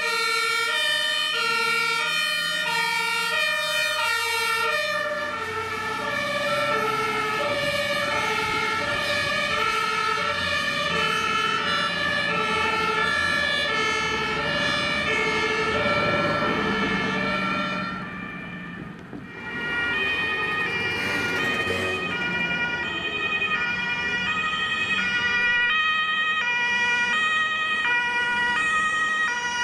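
Two-tone sirens (German Martinshorn) of several fire engines on an emergency run, each stepping between a high and a low tone, the horns overlapping out of step. Truck engines pass underneath, and the sirens briefly fade about two-thirds of the way in before the next vehicle's horn comes up.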